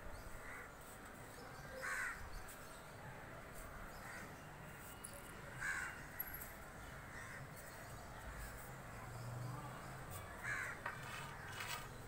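Crows cawing: several short, harsh calls a few seconds apart.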